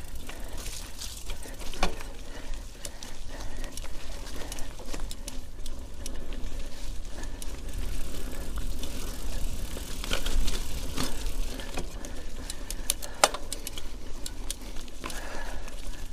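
Mountain bike riding over a rough trail: continuous rattling and clatter from the bike, with several sharper knocks from bumps, the loudest about thirteen seconds in, over a steady low rumble on the action camera's microphone.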